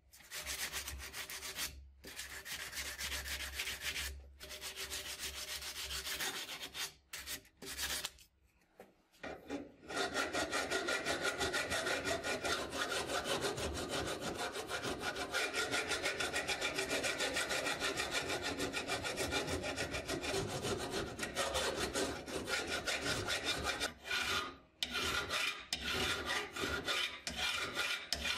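An abrasive sanding block rubbed back and forth over the rust-pitted steel hilt of a ground-dug Mauser K98 bayonet, in strokes with short pauses. After a brief stop about nine seconds in, a flat hand file rasps steadily across the steel.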